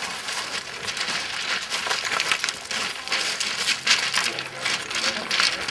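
Fell runners' feet crunching and skidding down loose slate scree, the stones clattering and sliding underfoot, with a few louder crunches in the second half.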